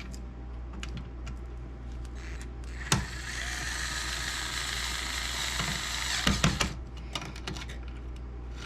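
Small electric screwdriver with a Phillips bit running for about three and a half seconds, driving a screw. It starts with a click about three seconds in and stops with a few clicks.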